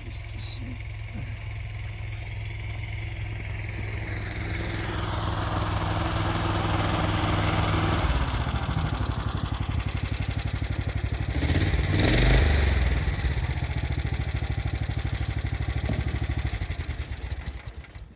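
Motorcycle engine running as it rides by, growing louder to a peak about twelve seconds in, then easing off and dropping away sharply near the end.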